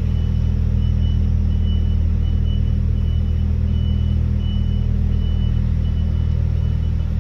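Lorry's diesel engine running steadily, heard from inside the cab, with a reversing alarm sounding a single high beep at an even pace, about three beeps every two seconds, as the lorry reverses.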